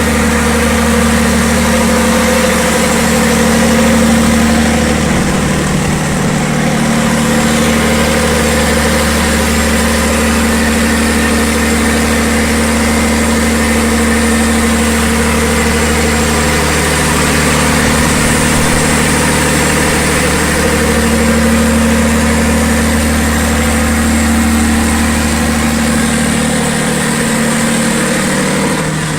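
A 760 kVA Perkins diesel generator set running at steady speed: a loud, even engine drone with a constant low hum, whose deepest part thins out near the end.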